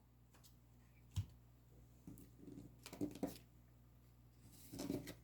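Near-silent room tone with a few faint soft clicks and rustles: a single click about a second in, and a brief rustle near the end.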